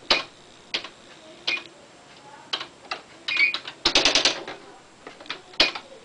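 Smith Corona SD750 electronic typewriter printing as it is typed on: single sharp strikes every half second or so, a quick run of strikes a little under four seconds in with a brief tone just before it, and one more strike near the end.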